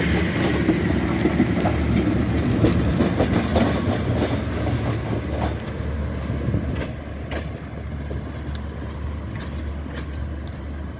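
Passenger coaches of a long express train rolling past, wheels clacking over rail joints, with a thin high whine a couple of seconds in. The noise fades steadily as the tail end of the train moves away.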